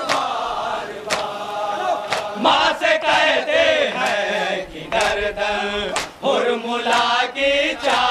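A group of men chanting a Muharram noha (lament), with sharp slaps about once a second from matam, hands beaten on the chest in time with the chant.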